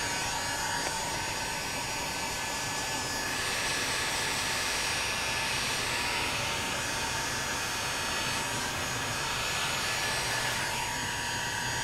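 Electric heat gun blowing a steady rush of hot air with a faint constant whine, held over a crack in a polyethylene kayak hull to soften the plastic for welding.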